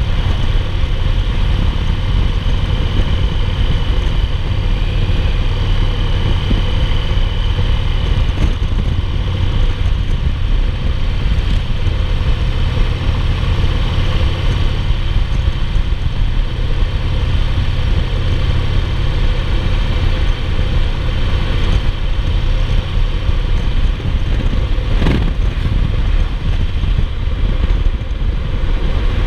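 2008 Yamaha Roadliner's air-cooled V-twin engine running steadily at cruising speed under a continuous rush of wind and road noise, heard from the saddle behind the windshield. A single brief knock comes near the end.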